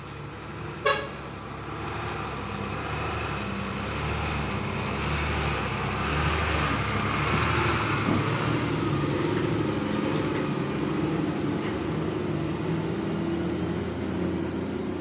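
Flatbed truck's engine running as it drives past with a mini excavator on its deck, growing louder over the first several seconds and staying steady. A short horn toot comes about a second in.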